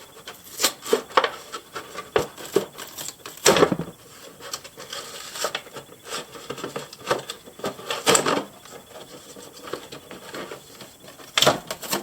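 A cardboard toy box being opened by hand: irregular rubbing and scraping of cardboard and packaging, with several louder scrapes along the way.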